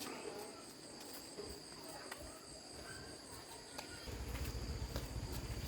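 Crickets chirping steadily in a high, continuous trill, with a low rumble joining about four seconds in.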